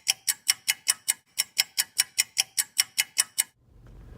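Rapid, even clock-like ticking, about five ticks a second, that stops suddenly about three and a half seconds in; a faint low hum follows.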